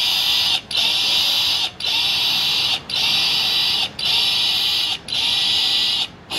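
Dance music from a portable loudspeaker: a harsh, hissing electronic sound pulsing about once a second, each pulse broken off by a short gap.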